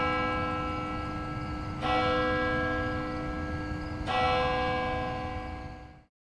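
A bell tolling slowly over a low rumble: a stroke rings on at the start, fresh strokes come about two and about four seconds in, each ringing with many overtones and fading slowly, and the sound cuts off abruptly near the end.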